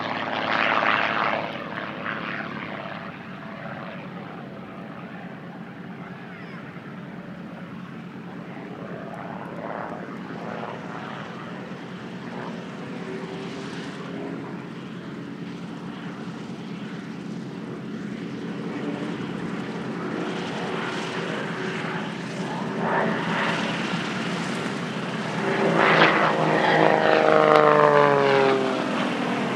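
Douglas C-47 Dakota's twin Pratt & Whitney R-1830 radial engines running as it taxis, loud at first, then steadier, and swelling again near the end, when the engine note falls in pitch as it passes close by.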